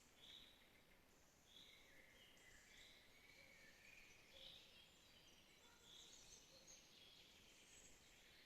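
Faint birdsong: short high calls at a few different pitches, repeating every second or so over quiet background hiss.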